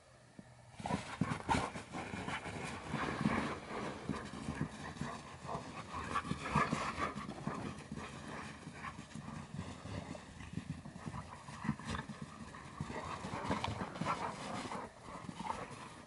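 Two Labrador retrievers, one yellow and one black, play-fighting in the snow: paws scuffling and crunching in snow, mixed with the dogs' panting and grumbling play noises, starting about a second in.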